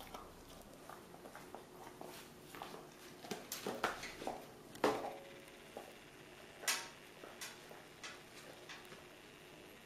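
Sparse light knocks and clicks of an Airedale terrier moving about a glass-topped table set with paper plates and across a hardwood floor. The loudest knock, about five seconds in, has a short ring after it.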